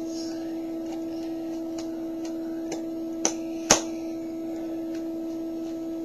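Plastic circuit-kit parts clicking as they are pressed onto the base grid: a few light clicks, then two sharper snaps a little after three seconds in. A steady hum runs underneath.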